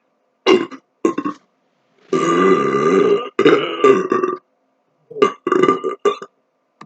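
A man's large belly burps, brought up from deliberately swallowed air: two short belches, then two long drawn-out ones of about a second each, then a few short ones near the end, each cut off by sudden silence where edits join them.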